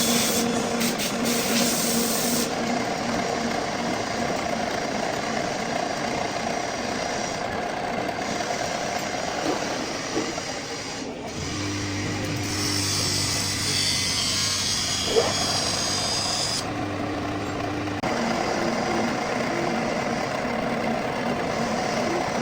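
Metal lathe running steadily in a machine shop. In the middle a lower hum and a higher hiss join for about six seconds, then drop away.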